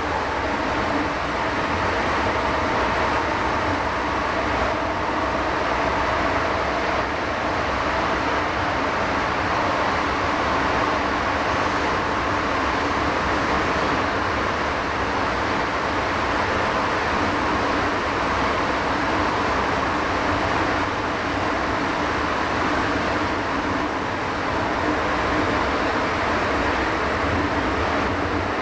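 Cabin noise of an MTR M-Train electric multiple unit running through a tunnel: a constant rumble of wheels on rail with a steady hum, holding the same pitch and level throughout.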